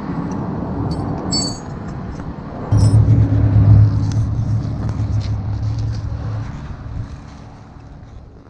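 A motor vehicle engine running, a steady low hum that jumps up loud a little under three seconds in and fades over the last few seconds. A few light metallic clinks come about a second in.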